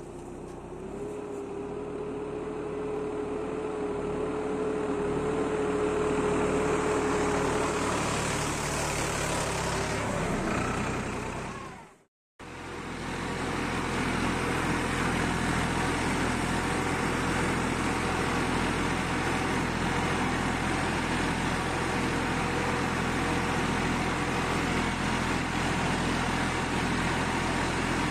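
Erkunt Kısmet 55e B orchard tractor's diesel engine running under load, pulling a nine-tine chisel plough. It grows louder over the first several seconds as the tractor comes closer, with a steady whine over the engine noise, then cuts out for a moment about twelve seconds in and is heard close up from the driver's seat, running steadily.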